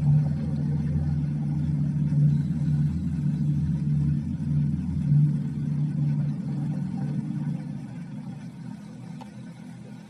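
Low, steady rumbling drone from an added sound effect, fading somewhat near the end and then cutting off suddenly.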